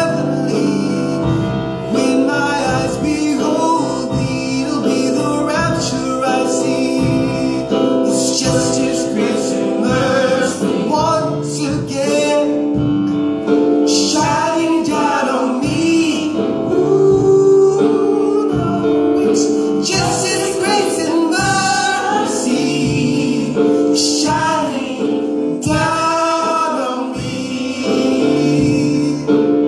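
Gospel music with singing by female and male voices, with a steady instrumental backing.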